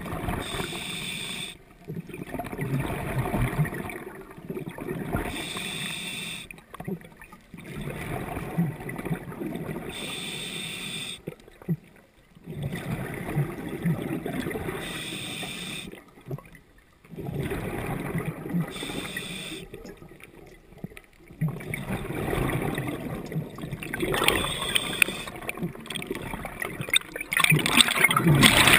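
Scuba diver breathing through a regulator underwater: exhaled bubbles gurgle in stretches of a few seconds, with short pauses between breaths about every four to five seconds, loudest near the end.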